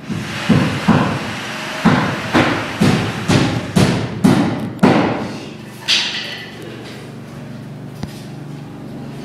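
A series of about nine heavy thuds, roughly two a second, followed by a single fainter knock near six seconds in.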